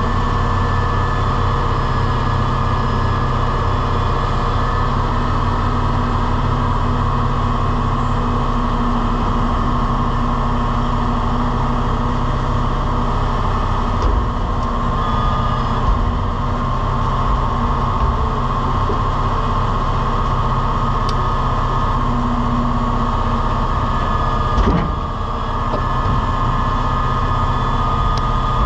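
Grapple truck's engine and hydraulic loader running steadily under load while the grapple is worked by hand levers, with a steady hum whose pitch shifts now and then. A few knocks, about halfway and near the end, as logs land in the steel dump box.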